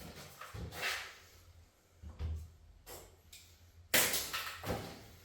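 Wooden door-frame piece being handled and test-fitted in a doorway: a few scrapes and bumps, then a sharp knock about four seconds in, the loudest sound.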